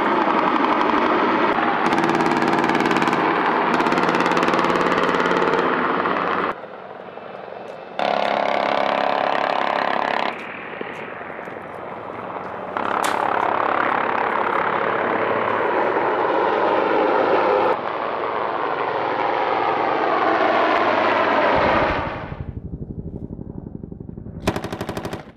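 Military attack helicopter noise, a loud steady engine-and-rotor drone, cut abruptly several times; near the end it drops to a quieter stretch before a short loud burst.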